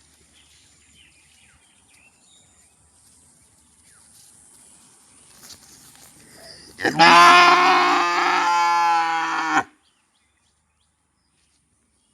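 A cow mooing: one long, loud call about seven seconds in, lasting under three seconds and cutting off suddenly.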